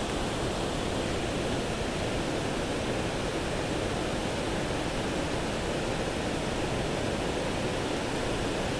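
Steady, even rush of flowing river water from the Arkansas River tailwater.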